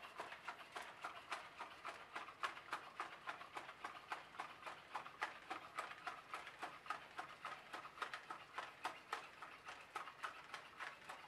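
Aldebaran NAO V4 humanoid robot walking on carpet: a rapid, regular run of small clicks and taps from its feet and joint servos, with a faint steady whine underneath in the second half.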